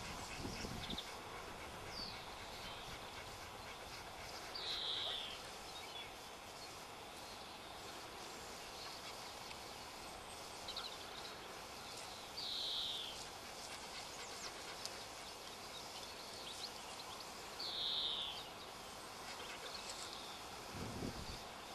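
A wild bird calling at intervals: a short, high, slightly falling call repeated every few seconds, with fainter brief chirps in between, over steady outdoor background noise.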